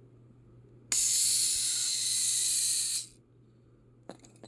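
Miniature Polaroid Land Camera keychain toy's built-in sound effect, set off by pressing its shutter button: a harsh hiss through its tiny speaker that starts abruptly about a second in and cuts off about two seconds later.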